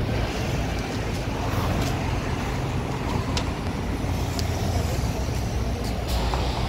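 City bus idling at the kerb, a steady low hum and rumble, with faint traffic noise around it.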